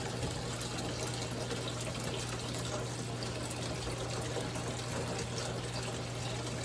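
Steady running water with a constant low hum underneath.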